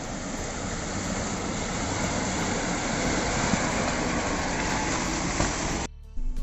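An off-road SUV's engine running as it crawls over a rocky, muddy track toward the microphone, mixed with a dense rush of noise that grows slightly louder. It cuts off abruptly near the end, giving way to a quieter, steady engine hum.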